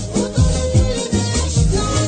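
Amazigh Moroccan music in an instrumental passage: a steady beat of hand percussion and shaker over low drum hits that slide down in pitch, with no singing.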